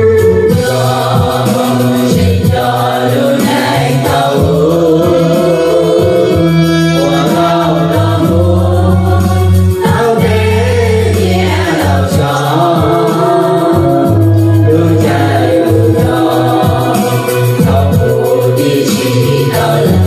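A song: singing voices over a keyboard accompaniment with long held bass notes.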